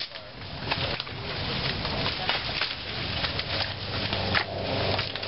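Dry sticks and brush crackling and snapping in an irregular run of sharp cracks, with one louder snap near the end.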